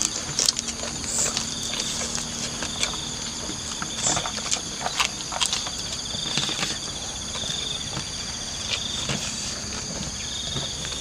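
Insects chirring steadily in several high-pitched tones, one of them a fast pulsing trill, with scattered short clicks and smacks of someone eating with his hands and chewing.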